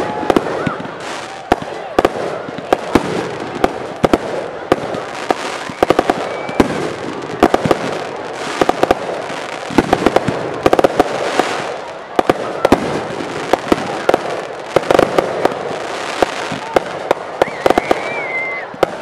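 Aerial fireworks bursting in quick succession: many sharp bangs a second over a continuous crackle from the bursting stars.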